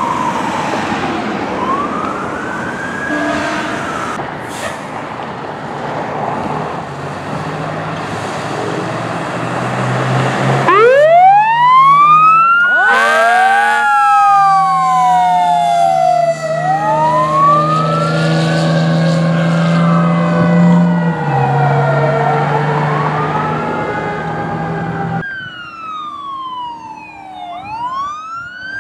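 Fire truck electronic sirens wailing, rising and falling in pitch, over a diesel engine running. A short horn blast comes about 13 s in. About 25 s in, a different siren cycling faster takes over.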